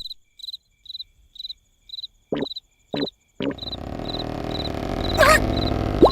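Cartoon sound effects: a cricket chirping in short, evenly spaced chirps about twice a second. From about three and a half seconds a steady low rushing noise joins it, with a wavering whistle-like glide about five seconds in and a quick rising pitch slide at the very end.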